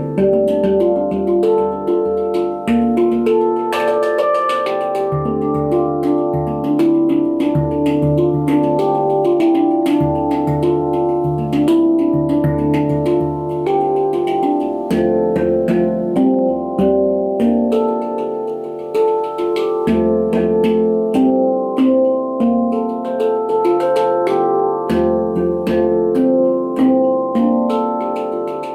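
JZ SoundArt handpan in D Kurd/Dorian played by hand: a quick, flowing stream of struck steel notes that ring on and overlap, with a low note sounding again and again beneath them.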